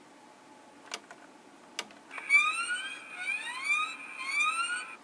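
Two clicks, then a Diamond Select Star Trek Enterprise toy's small built-in speaker plays an electronic sound effect: a siren-like tone that sweeps upward about three times.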